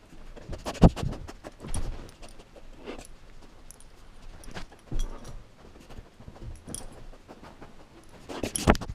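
A bed bug detection dog moving about on a bed close by: its collar tags jingle while its paws and body knock and rustle on the bedding in irregular thumps, the loudest about a second in and again near the end.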